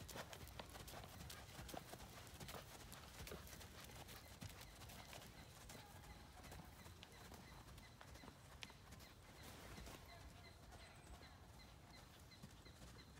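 Faint hoofbeats of a horse trotting on sand arena footing, growing fainter as the horse moves away.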